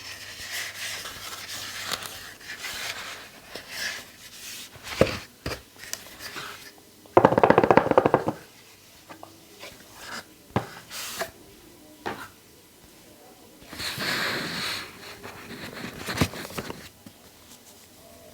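Hands handling a tablet's box and packaging: rustling and scraping with scattered clicks and taps, and a loud, rapid rasping rip lasting about a second roughly seven seconds in.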